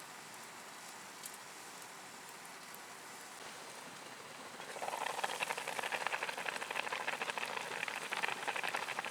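Food sizzling in a hot pan: after a faint steady hiss, a loud, dense crackling sizzle starts about five seconds in and runs on until it cuts off suddenly at the end.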